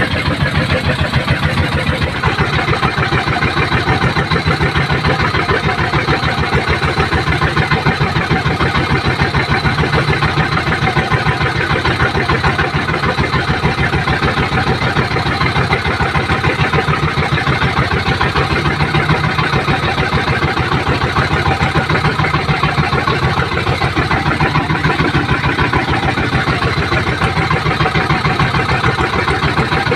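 Small boat engine running steadily at a constant speed, with a fast, even pulse of firing strokes.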